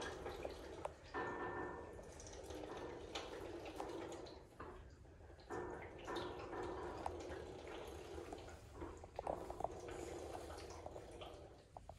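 African elephant calf sucking milk from a large plastic feeding bottle: wet sucking and gulping with milk gurgling and air bubbling back into the bottle, in two long spells with a short lull about four to five seconds in.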